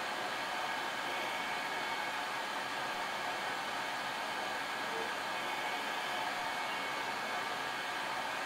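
Hot air rework station blowing a steady rush of air from its nozzle onto a GDDR5 memory chip, heating the solder toward reflow.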